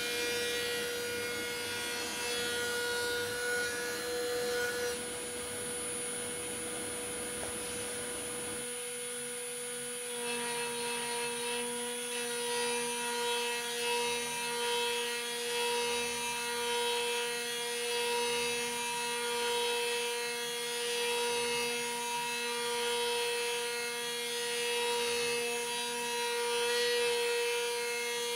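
CNC machine running: several steady whining tones over a rough noise. The sound changes about nine seconds in, when a lower whine joins.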